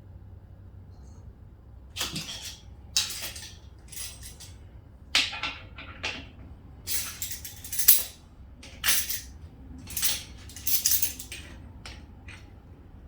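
Metal tools and parts clattering and rattling in about ten short bursts, a second or so apart.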